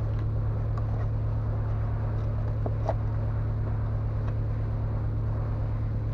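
A steady low machine hum, like an engine or compressor running nearby, with an even pulsing beneath it. A few faint clicks of parts being handled stand out, the clearest about three seconds in.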